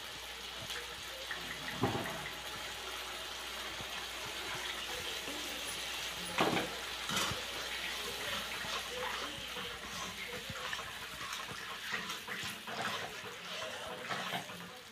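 Wet spice masala sizzling in hot oil in an iron kadhai, a steady watery hiss. A perforated steel ladle stirs it and knocks against the pan a few times, at about two seconds and again around six to seven seconds.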